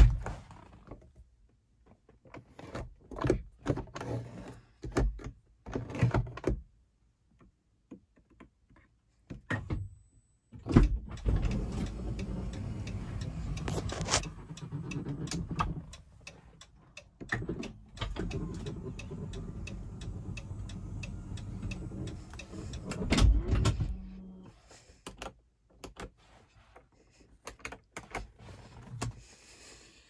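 Clicks and knocks of controls being handled, then a 2014 Dodge Grand Caravan's electric power-closure motor runs steadily twice, for about three and a half seconds and then about five seconds, the second run ending in a loud thunk as it closes.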